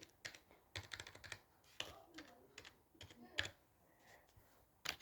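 Typing on a computer keyboard: faint, irregular key clicks, some single and some in quick runs, with short pauses between, the sharpest click about three and a half seconds in.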